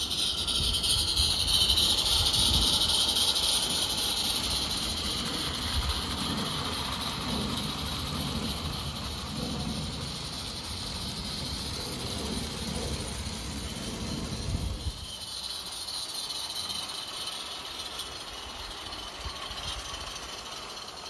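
Roundhouse Davenport live-steam garden-railway locomotive running with a train of small wagons: a steady steam hiss, strongest in the first few seconds, over the low rumble of the train on the track, which drops away about fifteen seconds in.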